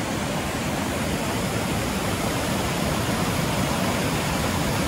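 Rushing water of river rapids and a small waterfall, a steady, even noise with no breaks.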